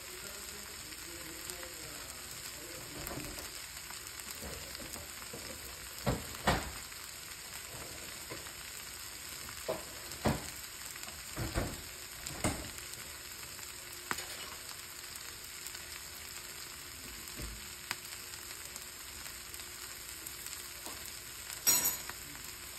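Black-eyed peas sizzling in oil in a pan, a steady faint hiss. A few short knocks fall in the middle, and a sharper clatter comes near the end.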